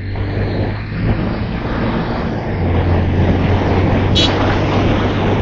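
Motorcycle engine running steadily at cruising speed with rushing wind and road noise, and a brief high-pitched chirp about four seconds in.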